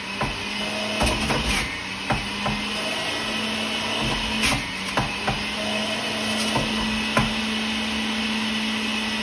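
Centrifugal juicer's motor running with a steady whir while produce, the last of it cucumber, is pushed through, with irregular sharp knocks as pieces hit the spinning basket.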